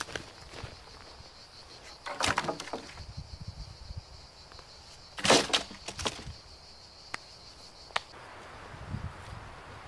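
A few crunching steps or snaps on dry twigs and pine-forest litter, the loudest about five seconds in. Under them is a steady high insect buzz that stops about eight seconds in.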